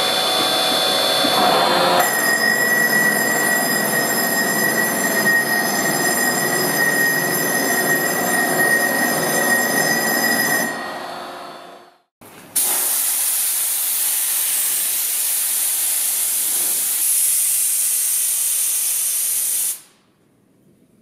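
Lupato Drago chiselling head on a bridge saw working a wet stone slab: a loud, steady grinding rasp with a high tone, changing character about two seconds in and fading out about halfway. After a brief gap a steady loud hiss starts and cuts off suddenly near the end.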